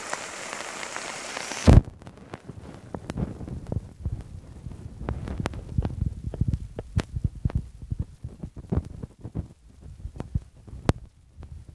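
Steady hiss of rain for nearly two seconds, ended abruptly by a loud knock; after that, irregular low thumps and short clicks.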